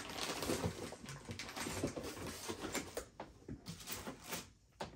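Rummaging through a box of parts: a busy run of rustles, light knocks and clatter that thins out after about three seconds.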